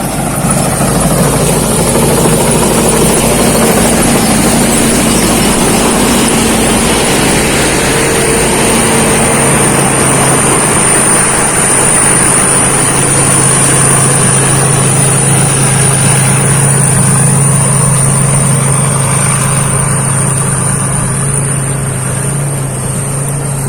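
Thai Seng Yont rice combine harvester running steadily: a constant loud machine drone with a thin high whine, its low hum growing stronger about halfway through.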